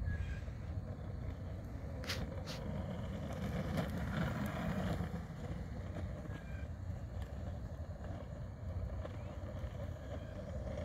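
Steady low outdoor rumble with wind on the microphone, and two sharp clicks about two seconds in.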